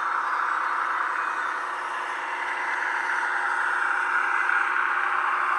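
Sentinel shunter diesel engine sound from a Loksound 5 DCC decoder, played through the model locomotive's small speaker with little bass, running steadily and growing a little louder toward the end.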